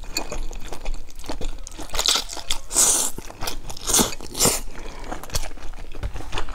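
A person biting and chewing food, with crunches and small wet clicks. Louder crunches come about two, three, four and four and a half seconds in.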